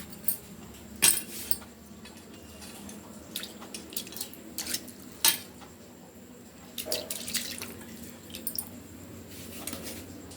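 Kitchen work: a few sharp clinks and knocks of utensils, with water splashing or dripping.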